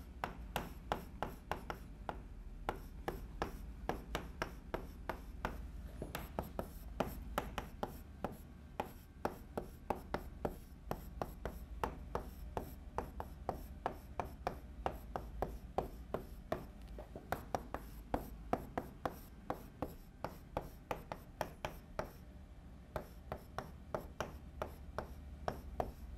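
Chalk writing on a blackboard: quick runs of sharp taps and short scrapes as each symbol is written, with brief pauses between strokes.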